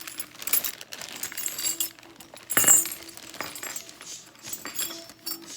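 Small metal tools and hardware clinking and rattling as they are handled in a chainsaw's tool case, with a louder clatter about two and a half seconds in.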